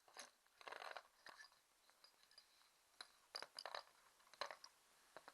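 Scattered light metallic clicks and clinks, in small irregular clusters, from an outboard connecting rod and its needle-bearing pins being handled.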